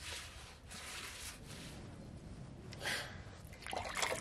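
Straw hand broom swishing around the inside of an earthen tandoor oven, sweeping out ash and embers: a run of soft brushing strokes, with two louder scrapes about three and four seconds in.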